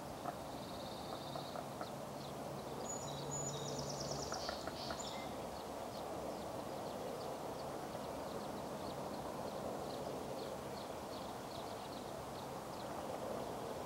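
Outdoor ambience by open water: a steady low wash with many faint, short high peeps throughout and a brief trilling birdsong about three to five seconds in.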